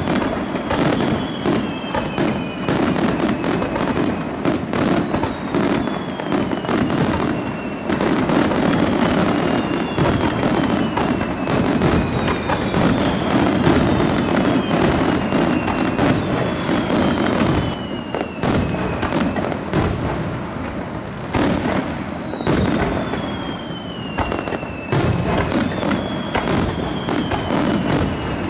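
Aerial fireworks display: a rapid, continuous string of shells going off in bangs and crackling. Whistles slide down in pitch every few seconds.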